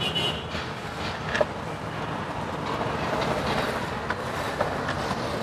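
A few light clicks and knocks as the plastic intake manifold of a Chevrolet Spark's E-TEC II 16V engine is handled and seated by hand, over a steady background hiss and rumble.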